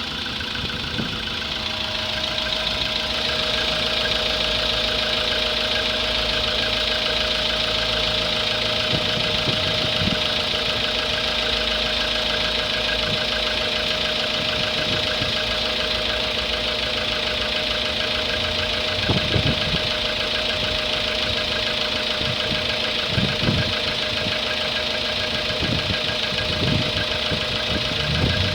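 An engine running steadily, with a steady whine that comes up about two seconds in and a few dull thumps in the second half.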